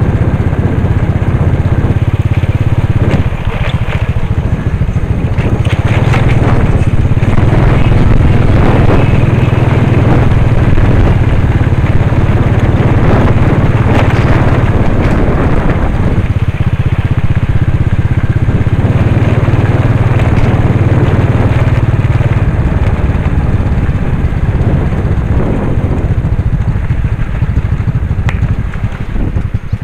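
Motorcycle engine running steadily while riding along a dirt trail, with rough crackling and crunching from the tyres and bumps over the dirt surface. The sound drops and turns uneven near the end.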